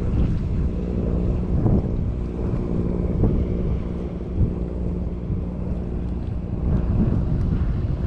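Wind buffeting the camera microphone: a steady low rumble with a faint low hum underneath.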